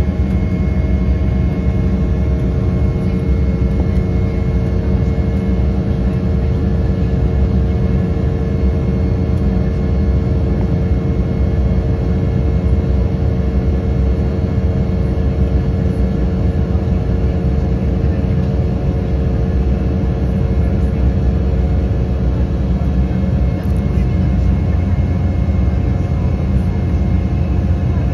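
Cabin noise of an Embraer E195 climbing out after takeoff: a steady, loud low rumble of airflow and its GE CF34-10E turbofan engines, with steady engine hums above it.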